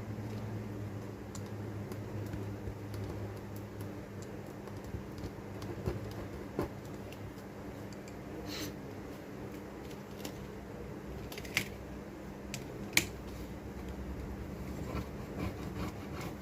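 Scattered light clicks and taps of small hard parts and tools being handled, a few sharper ones spread across the middle, over a steady low hum.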